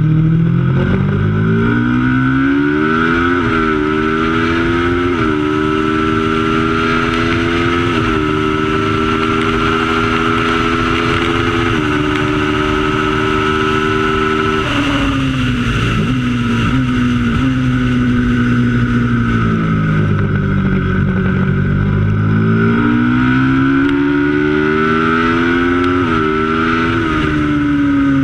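Racing motorcycle engine pulling hard up through the gears, its pitch climbing and then stepping down at each upshift. About halfway through it shuts off and falls in pitch through the downshifts into a corner, then accelerates again, stepping up through the gears near the end.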